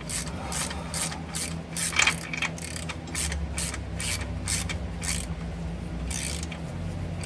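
Hand ratchet wrench being worked in quick repeated strokes, about three a second, driving a PTO mounting stud into a transmission case; the strokes pause about five seconds in, and one more follows. A steady low hum runs underneath.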